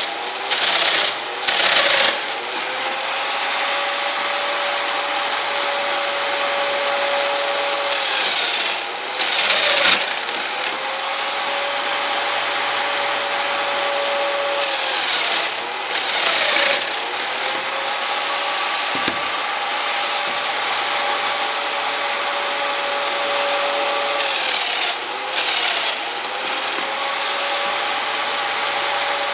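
A woodworking power machine runs steadily with a high motor whine. About four times, roughly every seven seconds, it slows briefly as it cuts into the white oak and then speeds back up.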